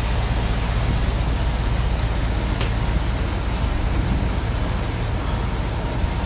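A cruising boat's diesel engine running steadily underway, a low drone with the rush of wind and water over it.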